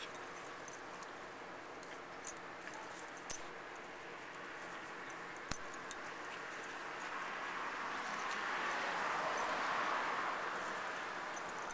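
Two Labrador retriever puppies play-wrestling, with soft dog noises and scuffling, and a few sharp clicks scattered through the first half. A broad hiss swells in the second half and eases off near the end.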